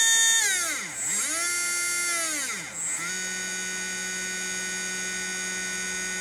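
Trinity 13.5-turn brushless RC motor spun by a Hobbywing Tunalyzer during its automatic analysis run. Its steady whine winds down about half a second in, spins back up, winds down again near three seconds, then holds steady at a new speed.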